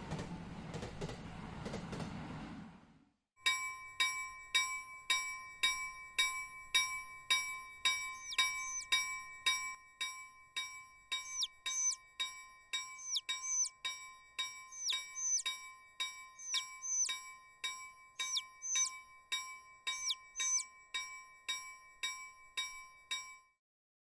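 A train running past for the first three seconds. Then a Japanese level-crossing warning bell rings its 'kan-kan' about twice a second until just before the end. From about eight seconds in, a chick's quick falling peeps, in pairs, sound over the bell.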